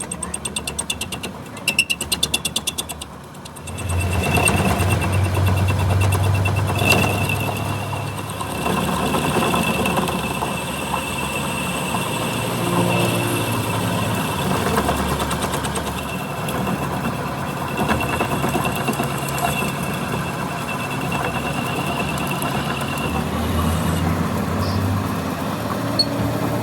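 A rapid mechanical rattle for about the first three seconds. Then a heavy engine runs steadily with a low hum and a thin high whine, typical of a truck engine idling.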